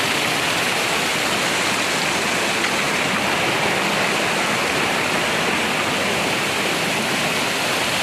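Small mountain waterfall cascading over rocks close to the microphone: a steady rush of falling water.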